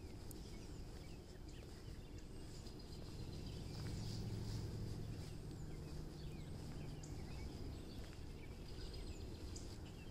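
Small birds chirping and singing in the trees, many short calls scattered throughout, over a low steady rumble that grows louder for a few seconds in the middle.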